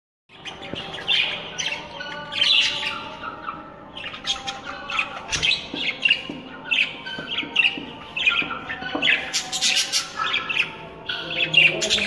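Budgerigars chirping and chattering: a busy run of short, high chirps with barely a pause.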